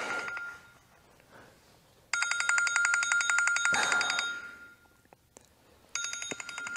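Mobile phone ringtone for an incoming call: two bursts of fast-pulsing, high-pitched ringing, each about two seconds long, with a short quiet gap between them.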